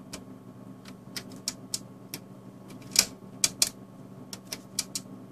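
Tektronix 2235 oscilloscope's front-panel rotary switch clicking through its detent positions as the sweep speed is stepped, about fifteen irregular clicks, the loudest about three seconds in. A steady low hum runs underneath.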